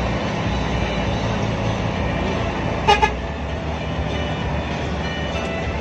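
Inside the cabin of a Hino AK8 diesel bus under way: steady engine and road drone, with a horn giving two short toots about three seconds in.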